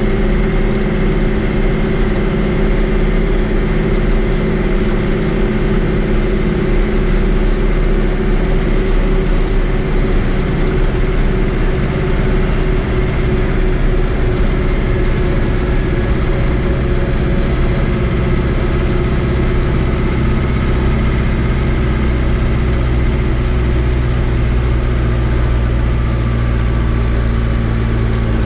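Fiat 80-90 DT tractor's diesel engine running steadily under way on a gravel road, heard loud from inside the cab; its low drone shifts a little near the end.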